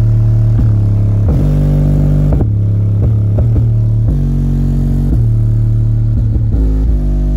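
Pioneer 5-inch PA woofer in a ported box playing a loud, deep bass line: held low notes that change pitch about once a second.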